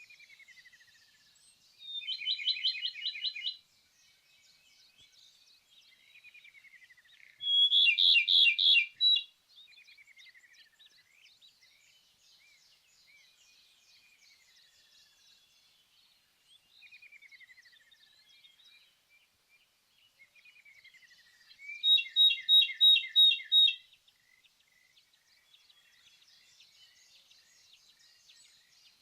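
Ryukyu robin singing: three loud phrases, each a rapid trill of repeated notes about a second and a half long, about two, eight and twenty-two seconds in. Fainter sliding bird notes fill the gaps between the phrases.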